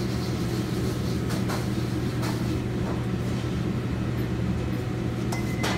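Steady low hum of running commercial kitchen machinery, with a few soft taps as dough is handled on the counter.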